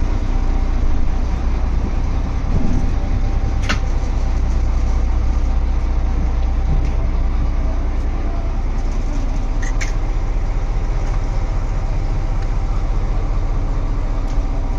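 Mechanized fishing trawler's diesel engine running steadily, a loud low drone, with two brief sharp knocks about four and ten seconds in.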